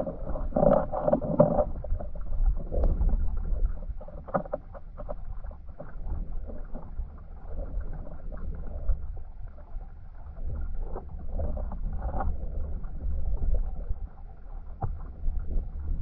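Underwater sound of a flowing river over a stony bed: a steady low rumble of current with scattered clicks and crackles, heavier in the first second or so, and muffled, with no high sounds.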